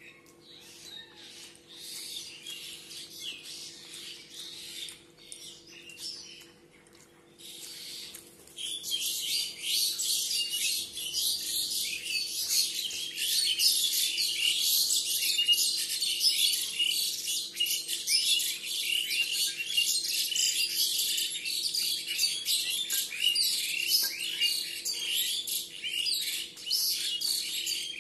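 Many small birds chirping in a dense, continuous chatter. The chatter is faint at first and grows much louder about a third of the way in.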